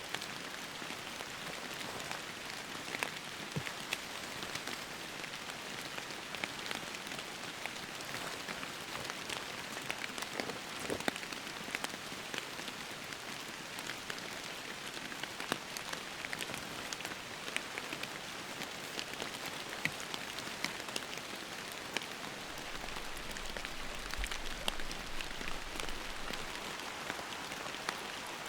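Steady rain, with many separate drops tapping sharply.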